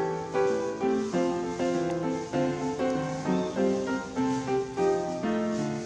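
Background piano music, a steady run of struck notes following one another.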